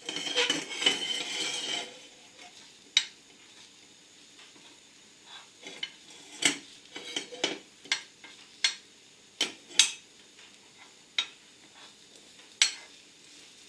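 A metal utensil tapping and scraping against a nonstick frying pan in sharp, irregular clicks while egg fries inside a slice of bread, with a louder noisy rush in the first two seconds.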